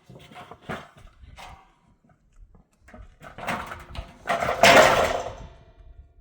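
An animal calling: a few short sounds, then a loud, harsh call that swells from about three seconds in and dies away near the end.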